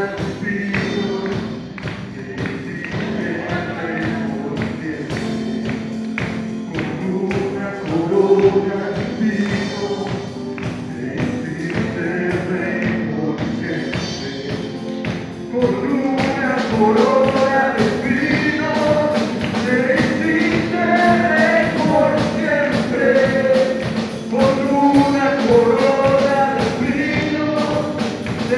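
Worship music with singing, a drum kit keeping a steady beat; the music gets louder and fuller about halfway through.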